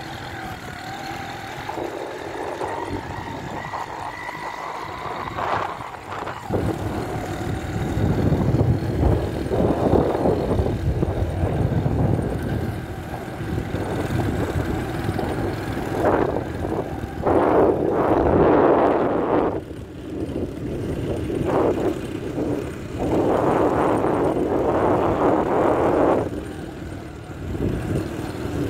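Motorcycle engine running at riding speed. From about eight seconds in, rushing wind noise swells and fades in gusts over it.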